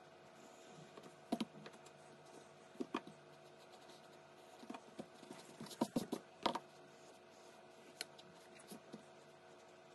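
Light, irregular taps and clicks of a graphite pencil and hand against paper on a desk as a hand is traced, a dozen or so scattered clicks with a cluster near the middle, over a faint steady hum.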